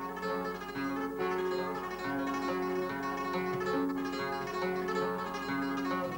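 Solo flamenco guitar playing a granaína: a plucked melody line ringing over sustained bass notes, in free, unhurried time.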